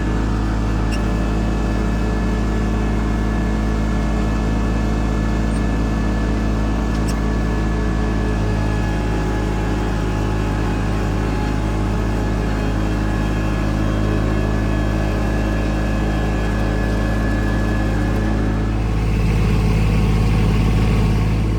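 Tractor engine running steadily under load, its pitch holding even, with a slight rise in the low drone near the end.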